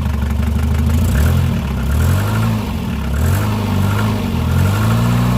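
1990 Volvo 740 engine running, its speed rising and falling before it settles to a steady pitch near the end. The outer pulley of its failed harmonic balancer is slipping on the hub, so the accessory belts barely turn.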